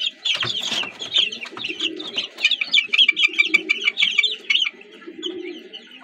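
A flock of young Sonali chickens calling, many short shrill cheeps overlapping, with lower, longer calls underneath. The high calling thins out near the end.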